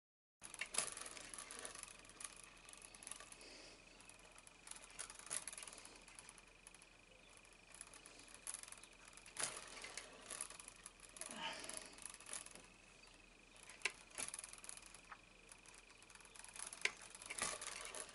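Hand-stitching leather: thread drawn through the stitching holes of a leather pouch in a wooden clamp, with scattered soft clicks and rustles from the thread, needle and leather. A faint steady high whine runs underneath.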